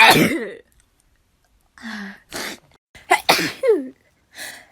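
A person sneezing twice, once right at the start and again about three seconds in, with quick sharp breaths drawn in between. Each sneeze ends in a voiced cry that falls in pitch.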